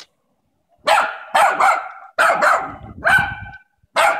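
Small dog barking at a cat: about seven short, sharp barks, several in quick pairs, beginning about a second in.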